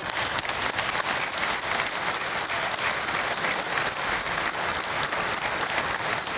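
Crowd applauding: dense, steady clapping from a large audience.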